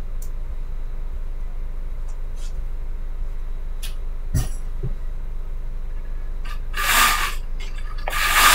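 Police radio scanner feed idling between transmissions: a steady hum with a few faint clicks. A short burst of static comes about seven seconds in and another near the end as the next transmission keys up.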